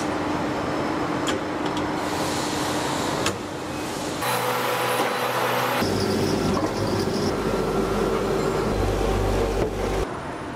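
Shot blasting machine and its extraction fan running: steady machine noise with a humming tone, changing abruptly several times.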